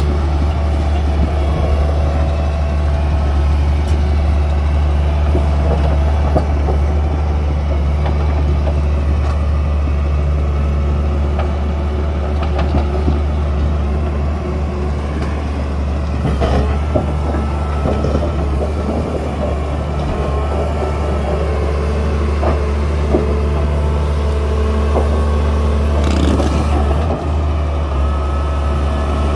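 Doosan DX530LC-5 crawler excavator's diesel engine running steadily with a deep drone, on a post-repair test run, as the machine climbs a dirt ramp on its tracks and then works its bucket into a rock pile. A few short clanks come through in the second half.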